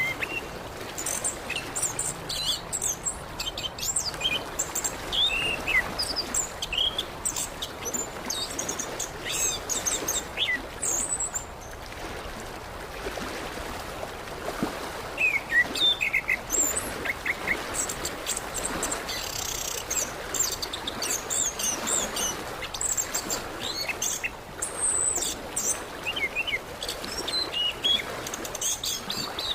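Chestnut-capped thrush (anis kembang) singing a long run of short, varied, high chirping and whistled phrases in quick succession, over a steady background hiss.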